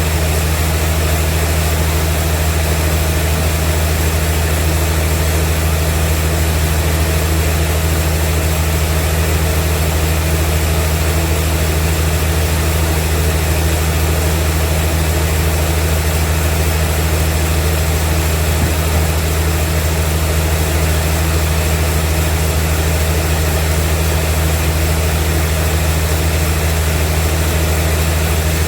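Vintage sawmill machinery running with a steady, unchanging low engine drone.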